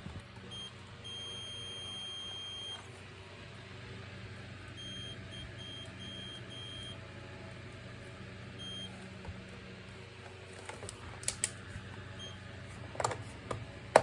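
Digital multimeter's continuity beeper sounding as test probes are touched to points on a vacuum cleaner's circuit board: one long high beep about a second in, then a run of short beeps and a few single ones. Each beep marks a closed, low-resistance path between the probe tips. A few sharp clicks and knocks come near the end.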